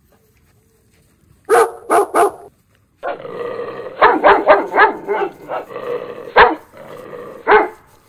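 Puppies barking and growling as they play-fight. Three sharp barks come about a second and a half in, then after a short pause a quick run of yips and barks over steady growling.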